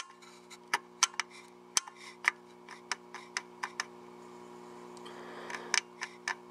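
Irregular light clicks as a finger presses and rocks a tuning capacitor in a VHF amplifier, at a solder joint that has let go, with a pause partway through. A steady low hum runs underneath.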